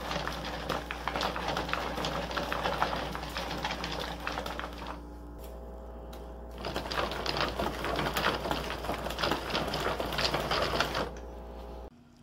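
Hand-cranked wooden model running, its wooden chain, sprockets, peg gears and wooden ball bearings clattering with fast, dense clicking. The clicking stops for a couple of seconds near the middle, then carries on.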